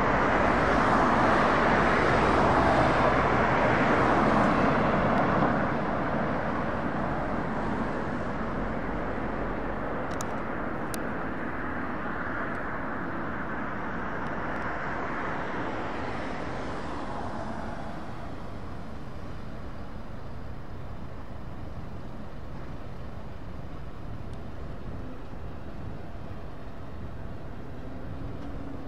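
Rolling vehicle noise, loud for the first five seconds, then fading gradually over the next dozen seconds into a steady, lower background rumble.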